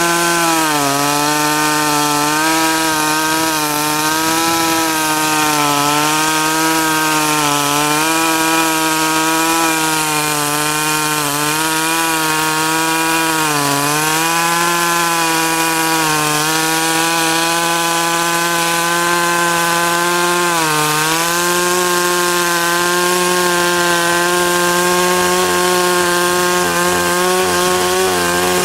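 52cc two-stroke chainsaw with a 20-inch bar running at high revs as it cuts through willow logs. Its pitch sags briefly every couple of seconds as the chain bites into the wood, then picks up again.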